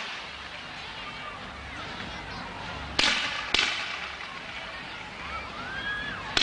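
Aerial fireworks shells bursting: two sharp bangs about half a second apart some three seconds in and another at the very end, each trailing off into crackle, with a brief rising whistle just before the last bang.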